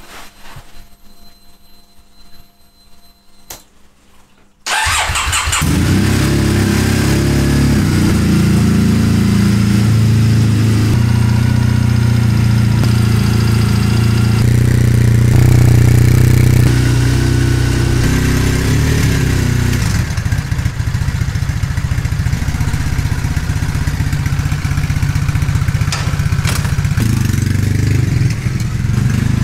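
Triumph Bonneville 865's air-cooled parallel-twin engine starting on the electric starter about five seconds in, after a few quiet seconds with faint clicks. It catches at once and then settles into a steady, deep-toned idle in a concrete underground car park.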